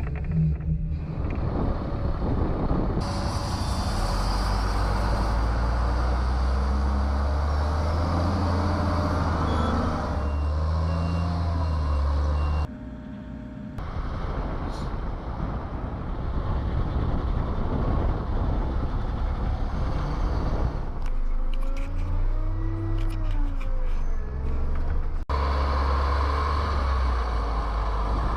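Sunward SWE 230E tracked excavator working, its Isuzu six-cylinder diesel running loudly under hydraulic load, with the pitch now and then gliding up and down. The sound changes abruptly several times.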